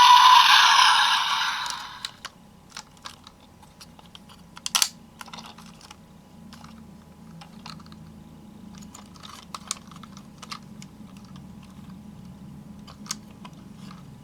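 Electronic sound from the DX Gatrike Phone toy's speaker fading out over the first two seconds, then scattered plastic clicks and snaps as the toy is handled, with one sharper click about five seconds in.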